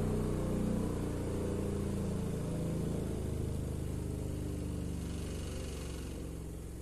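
Skar Audio SVR-12 12-inch subwoofer, bare on the bench with no enclosure, playing the low end of a downward bass sweep from 150 Hz to 20 Hz. It is a low hum with overtones that gets steadily quieter as the tone drops toward the bottom of the sweep.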